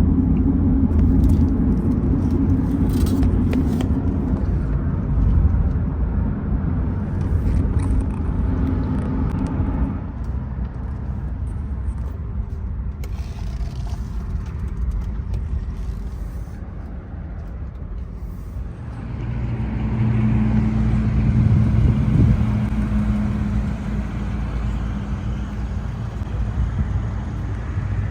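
A car driving: a steady low engine and road rumble, which grows louder for a few seconds about two-thirds of the way in.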